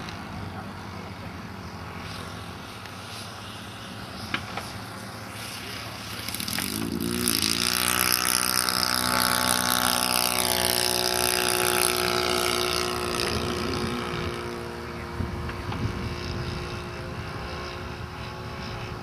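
Radio-controlled model aircraft's glow engine converted to run on petrol, heard in flight: fainter at first, then growing loud about seven seconds in as the model makes a low pass, holding a steady note for several seconds before fading as it climbs away.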